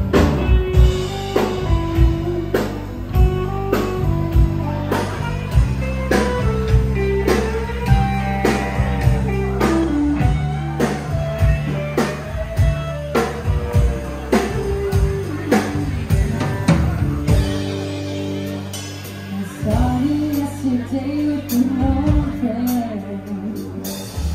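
Live band playing a country song: electric guitar, bass and drum kit.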